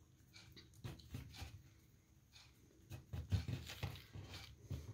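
Faint soft pats and rustles of hands pinching yeast dough shut around potato filling on a floured board, busier in the second half.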